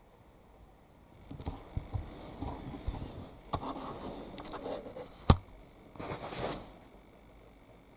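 Irregular scuffing, rustling and scraping, with several clicks and one sharp click or knock about five seconds in, starting a little over a second in and dying away near the end.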